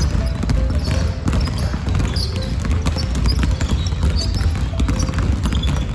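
A basketball dribbled in a quick run of repeated bounces during a tight, short-stride cone dribbling drill, with music playing underneath.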